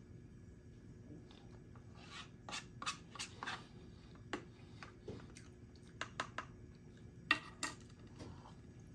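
Spoon scraping and clicking against a cup of soup while eating, a scattered string of short, light clicks and scrapes.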